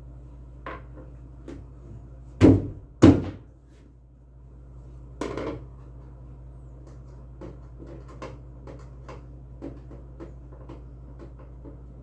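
Knocks and light clatter from working on a washing machine during repair: two loud knocks about half a second apart near the start, a softer knock a couple of seconds later, then a run of small taps and clicks, over a steady low hum.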